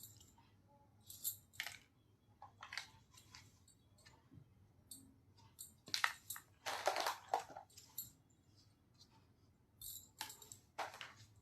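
Small plastic toy pieces being handled and unpacked: irregular light clicks and taps, with a longer, louder stretch of handling noise about six to seven and a half seconds in.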